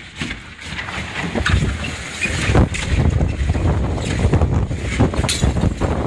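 Storm-force gusty wind rushing and buffeting the microphone. It gets louder over the first two seconds or so, then stays strong with gusts.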